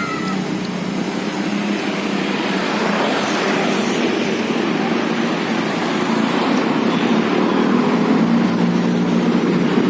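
Roadside traffic: a large vehicle engine running steadily under a broad rush of road noise that swells around the middle, the whole growing slowly louder.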